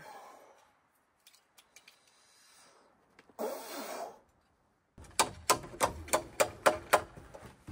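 A quick run of about eight sharp taps, three to four a second, starting about five seconds in, like light hammering on timber; before them, faint handling clicks and a short rustle.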